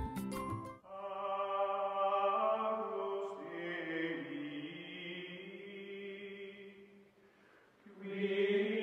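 Music: a chant-like choir of voices holding long chords, fading down about seven seconds in and swelling again a second later. Sharp clicking hits from the preceding music bed end within the first second.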